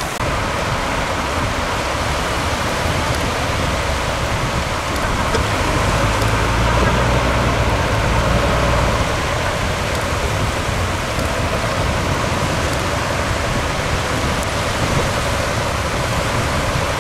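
Diesel engine of a Caterpillar log skidder running as it tows a boat trailer out through the surf, its low rumble heavier about halfway through. A steady rush of surf and wind lies under it.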